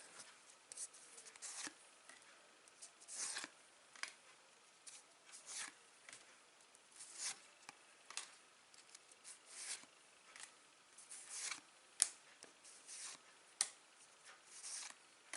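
Trading cards slid one at a time off a stack, a short papery swish roughly once a second.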